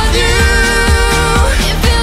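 Pop song music: long held notes that slide from one pitch to another over a steady beat.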